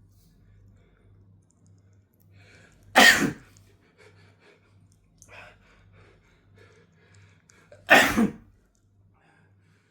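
A man sneezing twice, about five seconds apart, each a loud, sharp burst. Faint breaths come between the sneezes. The sneezes are brought on by chhinkni, a sneeze-inducing snuff.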